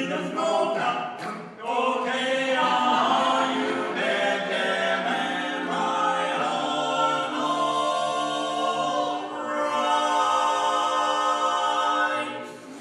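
Barbershop quartet of four men singing a cappella in close harmony, holding long chords. There is a short break about a second and a half in, and the singing stops just before the end.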